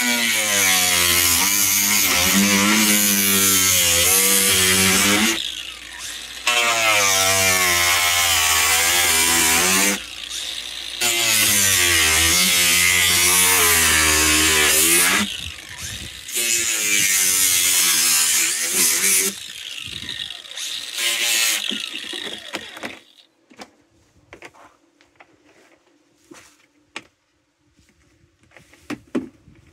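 Cordless drill running in four long bursts of about four seconds each, its pitch wavering under load as it works screws into plastic cat-litter buckets to fasten them together. Shorter bursts follow, and near the end there are only scattered light clicks and knocks.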